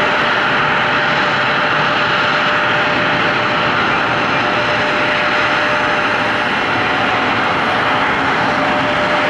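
Boeing 757-232 airliner's twin jet engines at takeoff power during the takeoff roll: loud, steady jet noise with a thin steady whine through it.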